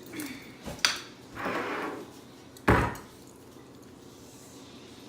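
Kitchen things being handled on a countertop while a sandwich is made: a sharp click about a second in, a short rustle, then one heavy knock about halfway through.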